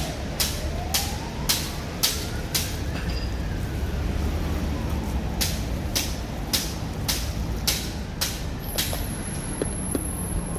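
Close-up crunchy chewing, sharp crunches about twice a second, as crackers or fried food are eaten. Behind it a siren wails, rising and then falling away, over a steady low traffic rumble.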